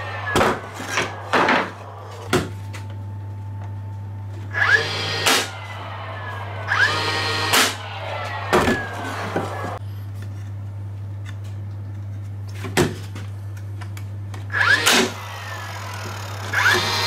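Dewalt 18V cordless flywheel nail guns firing nails into timber in several quick groups of sharp shots. Around each group a whine rises as the flywheel spins up and slides down as it winds down. A steady low hum runs underneath.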